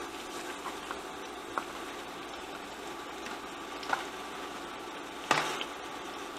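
Onions and sliced mushrooms sizzling gently in hot olive oil in a stainless steel pan, a steady hiss. A few light clicks, then a sharper knock about five seconds in.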